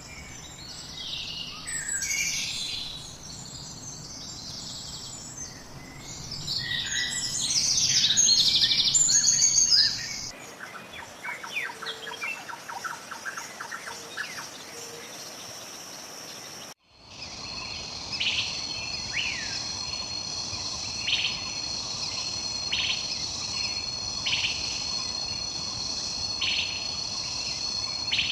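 Wild birdsong in three spliced recordings: first several birds chirping and calling together, then from about ten seconds a rapid repeated trill, and from about seventeen seconds a steady high insect drone with a short falling bird call repeating about every second and a half.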